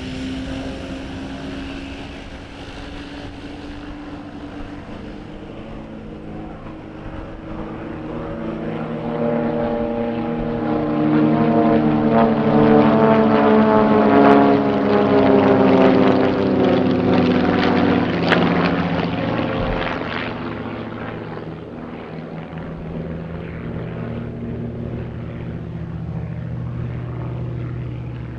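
Propeller engines of three aerobatic biplanes droning in a formation display, swelling as the planes pass closest about halfway through, their pitch falling as they go by, then settling back to a quieter, steadier drone.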